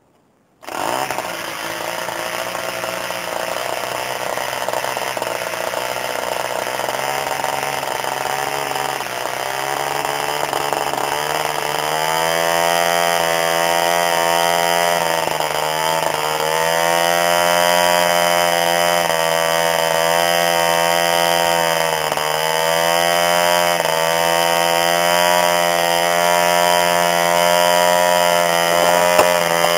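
SIM 2b 2.7 cc long-stroke sideport model diesel engine running steadily, turning its propeller, with the deep sound typical of it. It comes in abruptly under a second in, picks up a little speed over the first dozen seconds, and dips in speed briefly twice.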